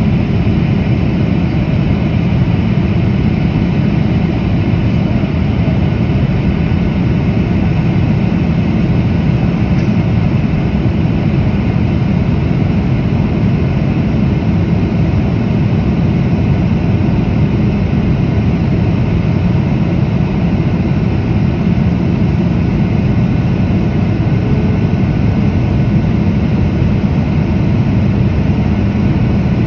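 Steady cabin noise of a Boeing 737-800 in flight, heard from a window seat beside the wing: the drone of its CFM56-7B turbofan engines and the rush of air along the fuselage, heaviest low down, with a faint steady whine above.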